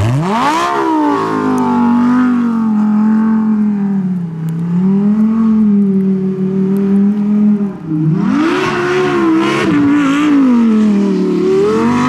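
Lamborghini Huracán Performante's V10 engine revving hard while the car spins its wheels and drifts on snow. The engine note climbs sharply at the start and holds high, eases off around four seconds in, then rises and falls several times from about eight seconds.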